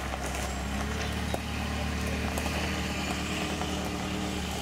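Ferrari 360 Spider's V8 engine running steadily at low revs as the car rolls slowly away across the car park.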